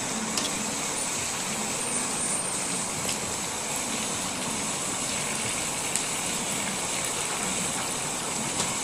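Chicken curry sizzling and bubbling in its own fat and oil in a pan, a steady hiss with a few faint ticks.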